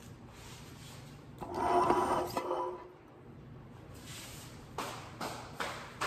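Kitchenware clattering for about a second and a half, with some ringing, then a run of footsteps on a hard floor, about two to three steps a second.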